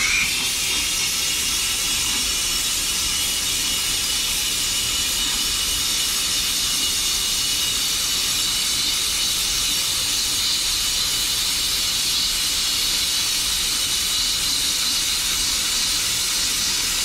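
Handheld plasma cutter cutting steel plate: a steady, loud hiss of the air-plasma arc that starts abruptly as the arc strikes, with a faint high whine in it.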